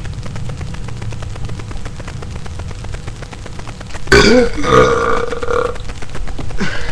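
A man's long, loud burp, starting suddenly about four seconds in and lasting nearly two seconds at a fairly steady pitch.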